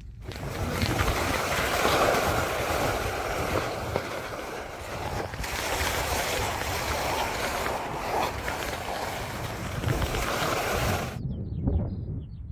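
Skis hissing and scraping steadily over rough, cupped spring snow on a descent, mixed with wind rushing on the microphone. About eleven seconds in it cuts to quieter wind with a few faint high chirps.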